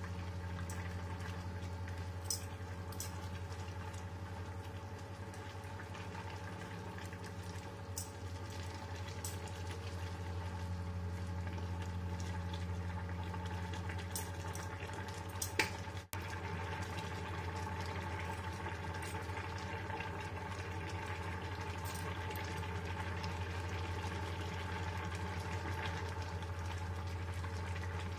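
Sayur lodeh, vegetables in coconut milk, simmering and bubbling in a wok while a spatula stirs it, with occasional light clicks of the spatula against the pan. A steady low hum runs underneath.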